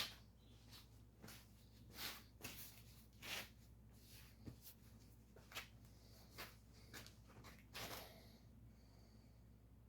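Faint, irregular light clicks and scrapes of a camshaft being eased by hand into a small-block Chevy engine block, its lobes and journals touching the cam bearings.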